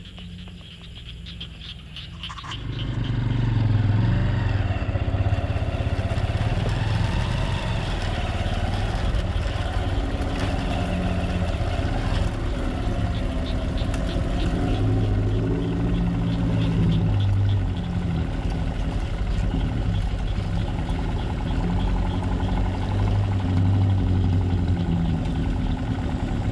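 Off-road 4x4 vehicle's engine running under load, its revs rising and falling. It comes in loud about two and a half seconds in.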